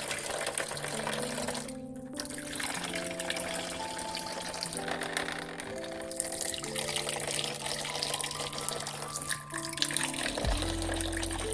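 Water running from a toy kitchen sink's tap into the basin, under background music playing a simple tune of held notes.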